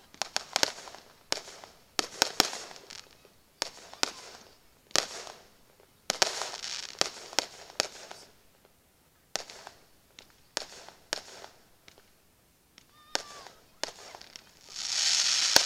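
Aerial fireworks going off in an irregular run of sharp bangs, some followed by crackling. A dense, louder crackle sets in near the end.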